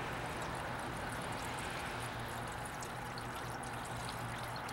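Engine coolant pouring steadily from a plastic gallon jug through a funnel into a truck's radiator, refilling the drained cooling system.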